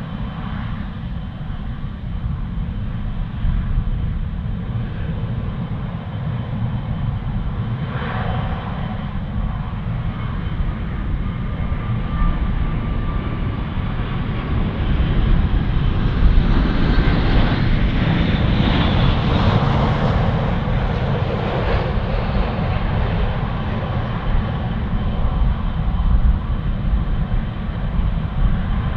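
Boeing 787-9's Rolls-Royce Trent 1000 jet engines on landing approach: a steady deep rumble that swells as the airliner passes close, loudest about two-thirds of the way through, then eases off.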